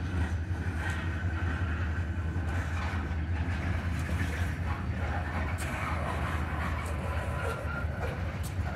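Freight train shoving a cut of covered hopper cars at walking pace: a steady low diesel locomotive drone under the rolling noise of the car wheels on the rails.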